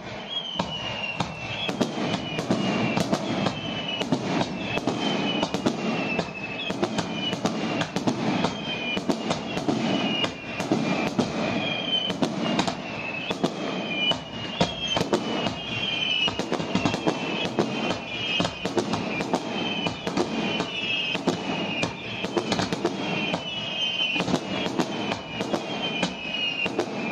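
A fireworks barrage: a rapid, continuous string of bangs and crackles, with many short whistles falling in pitch among them.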